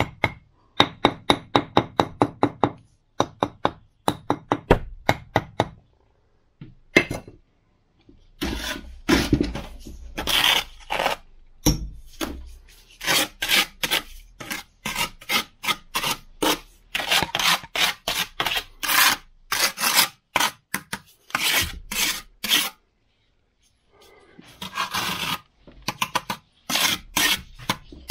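Steel trowel scraping and rubbing fresh mortar along the joints of firebrick masonry in repeated rasping strokes. A run of quick light taps comes first, and there is a short pause before the last strokes near the end.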